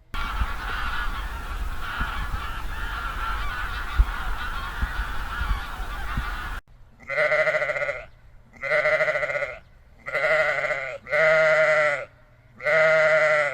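Many animals calling at once over low wind rumble, then after a sudden cut a single animal gives five long, drawn-out calls of about a second each, evenly spaced.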